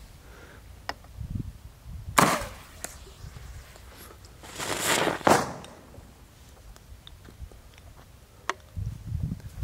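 A 37mm launcher fires once, a sharp bang about two seconds in, loading a 3D-printed fin-stabilized projectile downrange. About two and a half seconds later comes a longer rush of noise lasting about a second.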